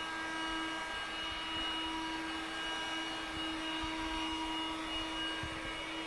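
Handheld cordless vacuum cleaner running steadily with a constant motor hum as its nozzle is moved over fabric sofa cushions.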